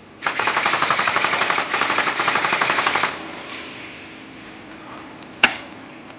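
Airsoft gun firing one full-auto burst of rapid, evenly spaced shots lasting about three seconds, followed about two seconds later by a single sharp crack.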